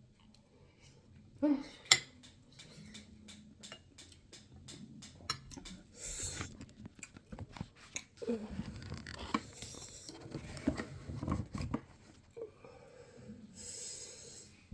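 A person eating jollof rice and chicken close to the microphone: a run of quick clicking, crunching chewing sounds, then denser crackly chewing with light knocks of dishes.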